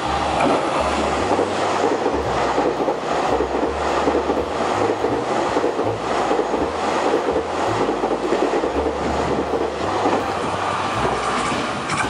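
EMU3000 electric multiple unit passing through the station at speed: a loud, steady rush of wheels on rail, with a quick run of clickety-clack as the bogies cross rail joints.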